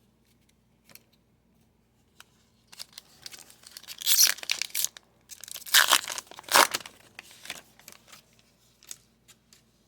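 Trading card pack wrapper crinkling and tearing, in a run of crackling bursts loudest through the middle few seconds, then a few light clicks.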